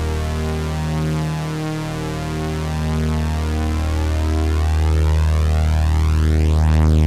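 Synthesized vocoder sound effect: a steady low electronic drone with a pulsing tone above it and a sweeping, phasing shimmer across the higher tones.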